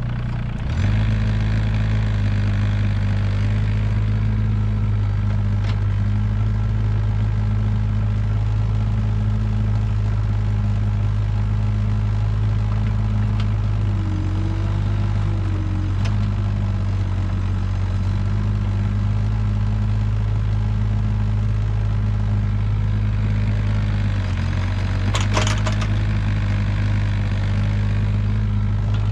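Mini excavator engine running steadily at working throttle, stepping up in speed about a second in. A brief wavering whine comes in the middle, and a sharp knock about 25 seconds in.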